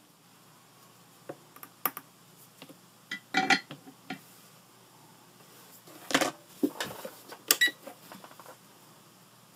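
Scattered clicks and clatters of small hard objects being handled on a workbench, loudest a few seconds in and again past the middle.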